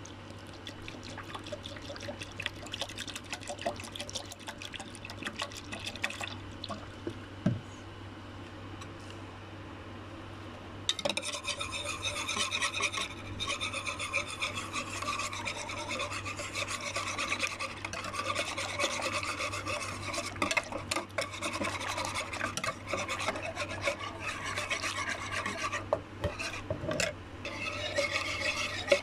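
Wire whisk beating gram flour into yogurt in a bowl: a quick, continuous scraping and rasping. About eleven seconds in it turns louder and brighter. A low steady hum runs underneath, and there is a single knock partway through the first half.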